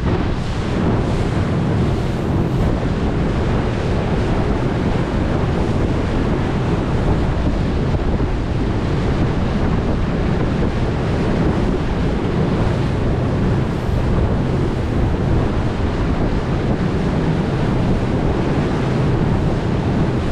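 Wind buffeting the microphone of a camera aboard a moving boat: a steady, low rushing noise that does not let up.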